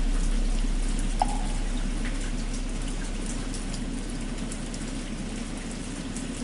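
Steady rain falling, under the low hum of a struck bell slowly dying away. A single light knock sounds about a second in.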